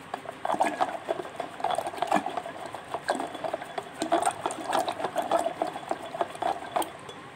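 Thick yogurt and gram-flour karhi batter being churned in a steel pot: irregular wet slapping and sloshing with quick clicks of the utensil against the pot, stopping just before the end.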